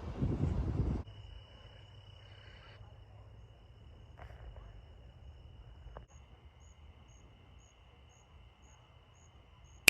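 A loud rush of noise for about a second, then insects trilling: one steady high trill, and from about six seconds in faint short chirps about twice a second.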